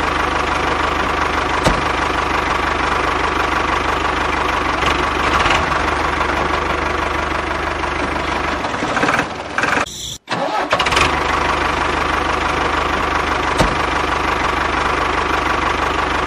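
Tractor engine running steadily with a low hum. It cuts off for a moment about ten seconds in, then runs on again.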